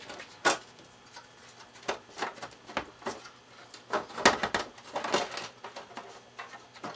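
Scattered clicks, knocks and light rattles of a Ramsey COM3 service monitor's loosened front panel being handled and tilted forward, loudest in a sharp click about half a second in and a cluster of knocks around four to five seconds in.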